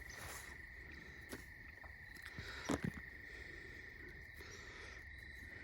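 Faint, steady insect chorus: a continuous high drone. A brief voice-like sound about two and a half seconds in.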